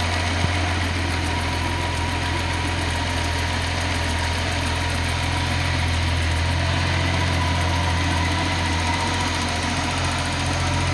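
Datsun 280ZX turbo's fuel-injected 2.8-litre straight-six idling steadily, freshly started and running on its rewired EFI harness.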